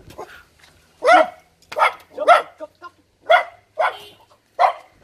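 A dog barking repeatedly: about six barks spaced half a second to a second apart, starting about a second in.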